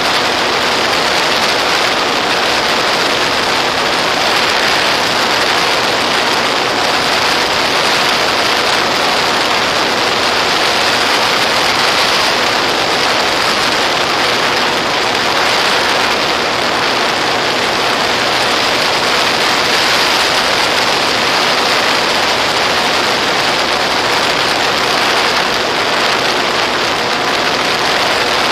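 Steady, loud rushing noise with a faint hum of steady tones underneath: air rushing past the onboard camera of a Volantex Ranger EX RC plane, with its electric motor and propeller running.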